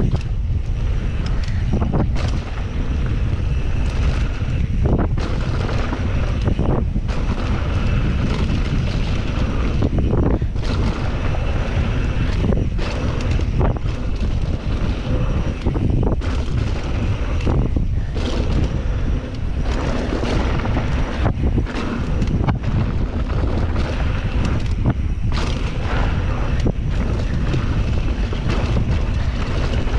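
Heavy wind noise on the microphone of a mountain bike descending a downhill trail at speed, with irregular knocks and clatters from the bike over rough ground.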